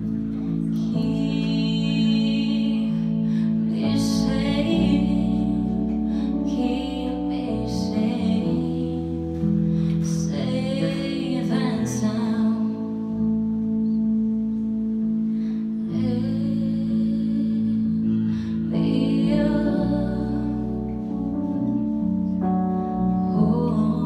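A slow R&B ballad performed live: a woman sings phrases that come and go, over keyboard chords held steadily beneath and an electric bass.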